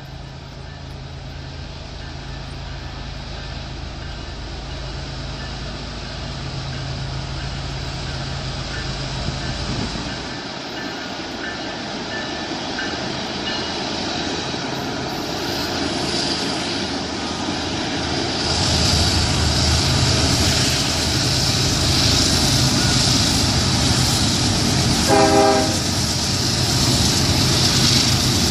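Norfolk Southern GE diesel locomotives, an ES40DC and an AC44C6M on the point, lead a freight train out of a tunnel and past. The engine drone and rail noise grow steadily louder as they approach. A short horn blast sounds near the end.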